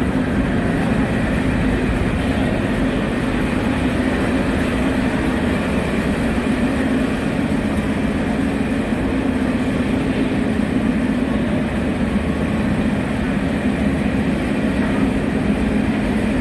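Steady rumbling din of an underground metro station, of the kind metro trains make, with a low hum under it.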